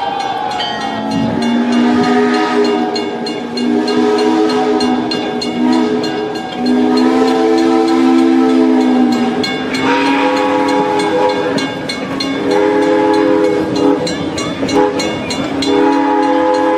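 Train whistle sounding a series of about six long blasts, each a chord of several tones, with short gaps between them.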